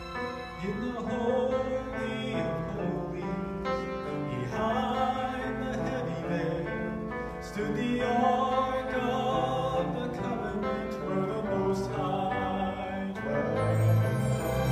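A man singing solo into a microphone, his amplified voice over instrumental accompaniment.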